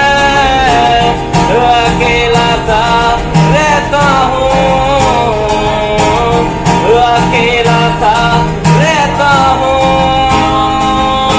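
Acoustic guitar strummed with a man singing over it, his voice sliding between notes.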